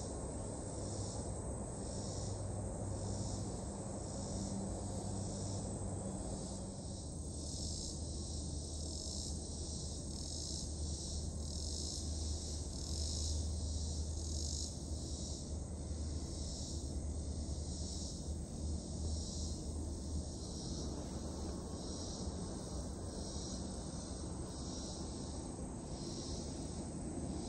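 Chorus of summer insects, a steady high-pitched buzzing that pulses in an even rhythm of about one beat a second, over a faint low drone in the distance.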